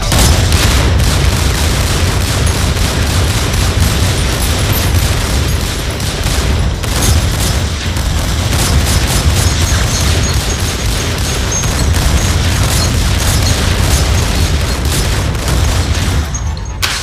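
Sustained gunfire from handguns: many shots fired in rapid, overlapping volleys with heavy booms underneath, thinning out near the end.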